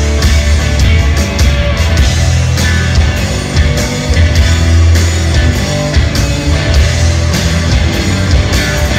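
Live rock band playing loud: electric guitar over bass and drums, with frequent cymbal hits.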